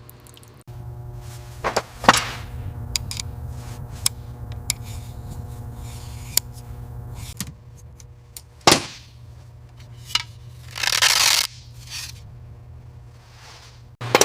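Workshop sounds of metal tools being handled: sharp clinks and knocks, the loudest about two seconds in and near nine seconds, over a steady low hum that stops about seven seconds in, then a short hiss around eleven seconds.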